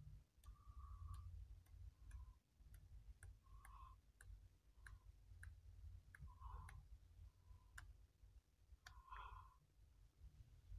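Near silence: faint, irregular clicks and a low rumble of handling as the pages of a comic book are turned.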